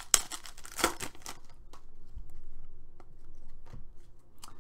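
A foil trading-card pack being torn open, with two sharp crinkling rips in the first second, then light clicks and slides of the cards being handled.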